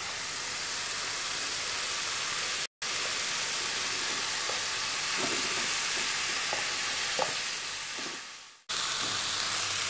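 Spice paste frying in oil in an aluminium wok, a steady sizzle, with a few light knocks as shredded mackerel tuna is tipped in from a plastic bowl. The sound breaks off abruptly twice.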